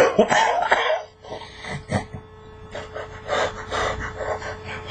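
A man gasping and breathing hard through his open mouth while eating, with a loud gasping outburst in the first second followed by short, irregular breaths.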